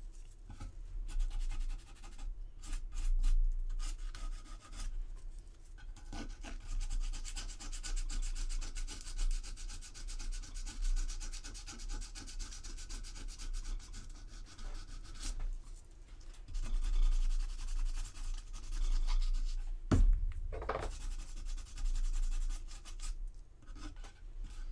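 Hand sanding of a resin model-kit part with a small piece of sandpaper: irregular rubbing, scratching strokes over a filled glue seam, smoothing it to blend the joint. One short knock about twenty seconds in, over a steady low hum.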